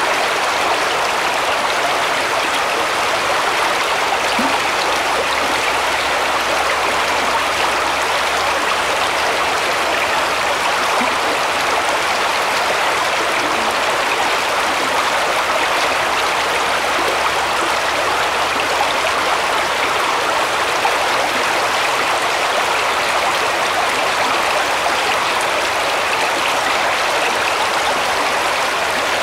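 Shallow forest brook running over stones and around fallen logs, a steady babbling and rippling of water.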